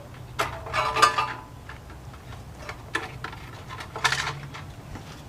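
Handling noises: a few short clatters and rattles of small parts being moved about, over a faint steady low hum.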